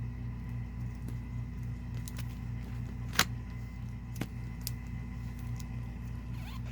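Small handling sounds of tape and paper being worked by hand: one sharp click about three seconds in and a smaller one about a second later, with a few faint ticks, over a steady low hum.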